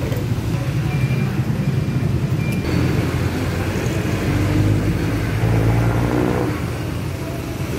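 Road traffic on wet asphalt: cars and motorcycles running past with a steady low rumble, and one engine passing close about five to six seconds in.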